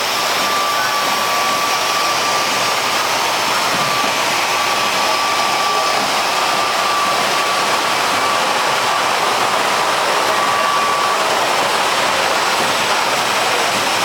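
Steady factory-floor machinery noise, loud and even, with a thin high whine that breaks off now and then and stops about eleven seconds in.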